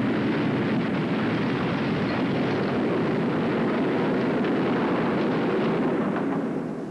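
Steady, loud rushing wind noise with no pitch to it, fading away in the last half second or so.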